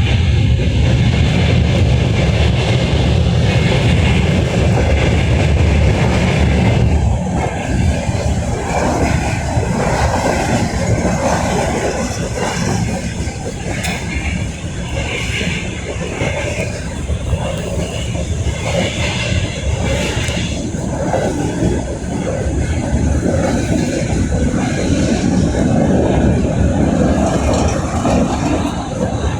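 A 2ES5K electric freight locomotive passing with its train. A heavy low rumble for about the first seven seconds gives way to lighter rolling noise of wagons, with faint clickety-clack.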